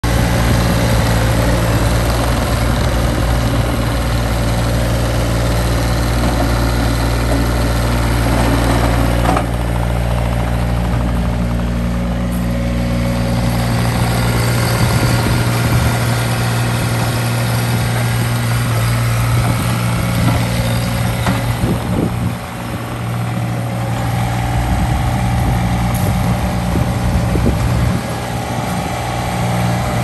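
Ditch Witch SK752 mini skid steer engine running steadily while the machine is driven and its bucket is worked, the load shifting a few times and dipping briefly about two-thirds of the way through. A higher steady whine joins near the end.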